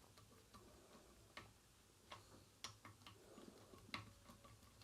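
Faint, scattered small clicks and taps, a few spaced about a second apart, from hands and a tool working on a valve radio's push-button tuning lever mechanism.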